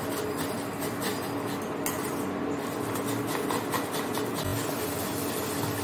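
Onion being grated by hand on a grater over a steel bowl: steady repeated rasping strokes, with a steady low hum behind.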